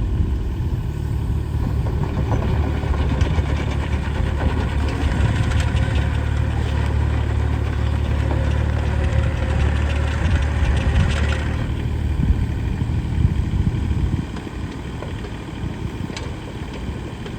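Case CX17C mini excavator's diesel engine running, busier and louder with small clicks for most of the stretch, then dropping back to a quieter idle about three-quarters of the way through.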